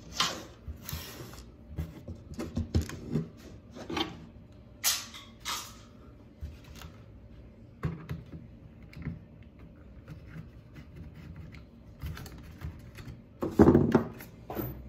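Scattered small clicks, taps and plastic creaks of a laptop's plastic case and parts being handled and unscrewed with a screwdriver, with louder knocking near the end.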